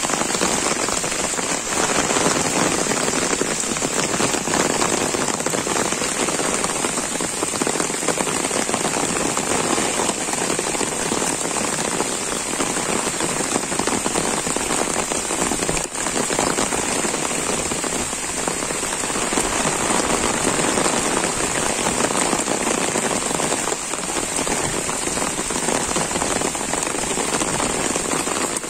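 Heavy, steady downpour of rain falling on leaves, grass and waterlogged ground.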